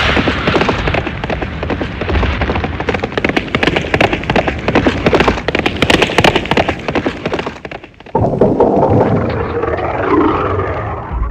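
Cartoon sound effects: a dense run of cracks, bangs and clatter for about eight seconds, then after a brief dip a different loud noisy sound with a wavering pitch.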